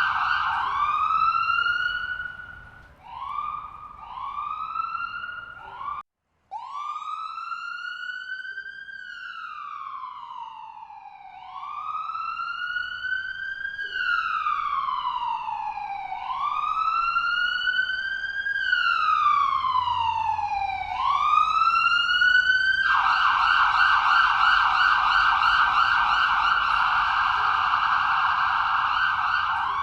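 Ambulance siren cycling through its tones. It opens with a rapid warbling yelp, then a few quick rising whoops, and drops to silence for half a second about six seconds in. It then runs a slow wail rising and falling about every two and a half seconds, and switches back to the rapid yelp about three-quarters of the way through, louder.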